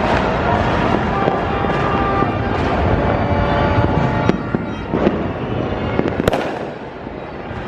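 New Year's Eve fireworks and firecrackers going off continuously in a dense crackle, with sharper bangs about four, five and six seconds in, the last the loudest.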